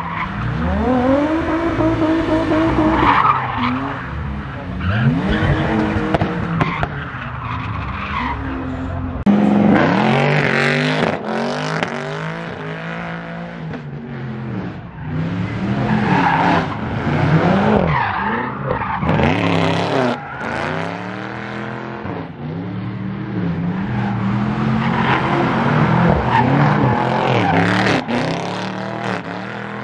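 Cars drifting: engines revving up and down hard and over and over under throttle while the rear tyres squeal and skid across the tarmac. The sound changes abruptly about nine seconds in as another car takes over.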